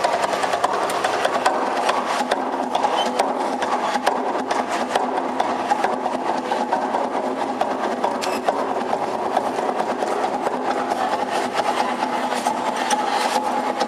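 Fast, continuous hand drumming: a dense run of quick strokes that keeps up without a pause, with a few steady tones under it.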